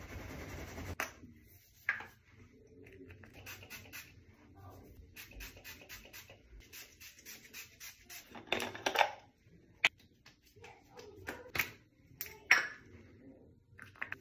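Soft rubbing and scratching strokes of hands and towel working through wet hair, then a spray bottle misting product onto the hair in a quick double spray about eight and a half seconds in, followed by a few sharp clicks of a pump bottle dispensing into a palm.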